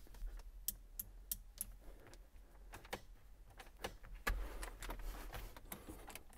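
Irregular sharp clicks, a dozen or so, from push-button switches and their relays being worked while testing aftermarket two-step launch-control wiring. The loudest click comes about four seconds in.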